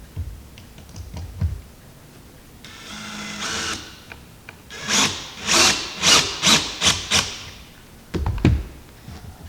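Cordless drill/driver running screws into the boat's deck: one steady run of about a second, then about six short trigger bursts in quick succession. A dull knock near the end.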